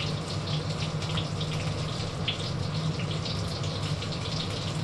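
Chicken frying in hot oil, a steady sizzle with irregular crackles, over the low steady hum of the cooker-hood extractor fan.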